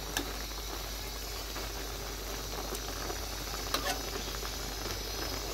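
Fish curry with spinach boiling in a wok, bubbling and sizzling steadily. A metal spatula stirring through it gives a few light clicks against the pan.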